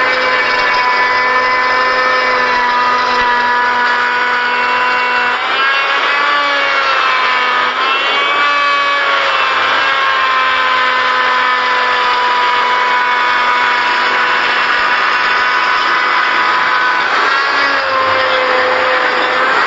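Electric power tool running with a steady whine while carving wood. Its pitch sags and wavers for a few seconds starting about five seconds in, and again briefly near the end, as the motor slows under the load of cutting.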